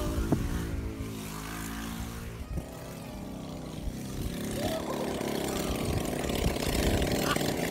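Small 110cc go-kart engine running, its note dropping off about two and a half seconds in, then building again from about four and a half seconds.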